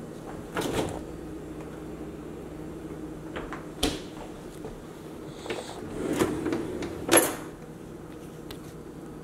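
A kitchen drawer of cutlery and utensils slid open, rustling and clinking for about a second and stopping with a sharp knock about seven seconds in. Before it come a short knock about half a second in and a single click near four seconds, from handling kitchen doors and cabinets.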